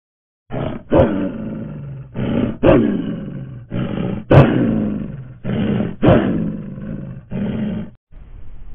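A large animal giving a series of deep, loud calls: about five in a row, each a short grunt running into a longer call that falls in pitch, roughly one every one and a half seconds. The calls stop abruptly near the end.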